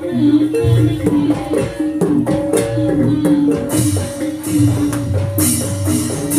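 Live gamelan-style jaranan accompaniment: a stepping melody on tuned metal percussion over regular low drum strokes, with two bright metallic crashes in the second half.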